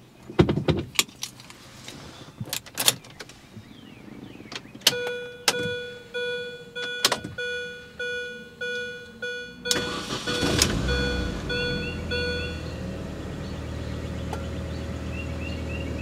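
A few clicks, then a repeating electronic chime for about five seconds. About ten seconds in, the 2005 Mini Cooper S's supercharged four-cylinder engine cranks and starts, then settles into a steady idle with the supercharger's whir.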